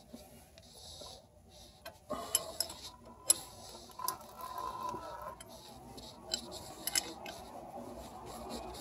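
Faint, scattered small clicks and light clinks of a wrench and fittings at a front brake caliper's bleeder screw during brake bleeding, over a faint hiss.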